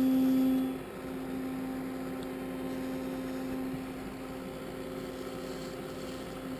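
Electric toothbrush buzzing with a steady even pitch, held against pepper flowers to vibrate the pollen loose for hand-pollination; it is louder for about the first second, then steady and quieter.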